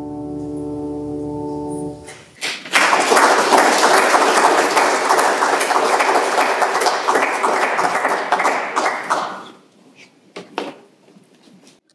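The piano's final held chord stops about two seconds in. The congregation then applauds loudly for about seven seconds. A few knocks follow as the choir moves off.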